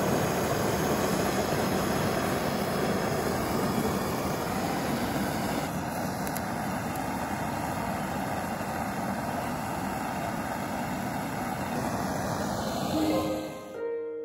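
Handheld gas blowtorch burning with a steady rushing hiss as it chars bamboo; the torch noise fades out near the end and plucked, harp-like background music begins.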